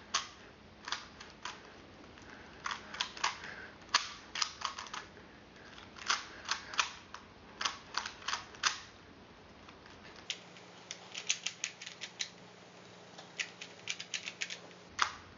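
Plastic Rubik's Cube layers being turned quickly one-handed, sharp clicks in rapid clusters with short pauses between turn sequences.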